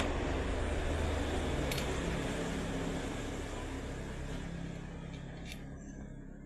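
Steady low machinery hum under a wash of noise, with a few light metallic clicks.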